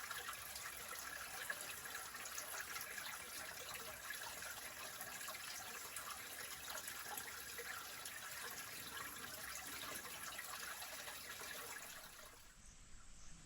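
Stream water trickling steadily, with a run of small splashes and drips; it drops away shortly before the end.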